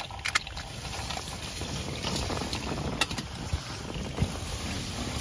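Hot water poured from a metal pot into a metal pour-over coffee dripper, trickling through the grounds into the cup. There is a sharp click just after the start and another about three seconds in.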